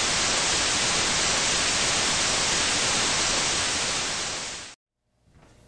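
Steady hiss of TV static (white noise) that fades briefly and cuts off suddenly a little before the end, leaving faint room sound.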